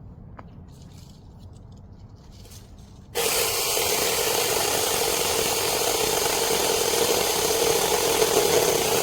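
Battery-powered 6-inch mini chainsaw starting suddenly about three seconds in and running steadily as it cuts into a thicker tree branch.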